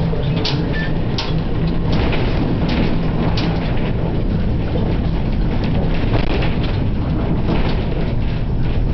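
Old Dudley electric tram car running along, heard from inside its wooden body: a steady low rumble and hum from the wheels and motor, with frequent rattles and clicks.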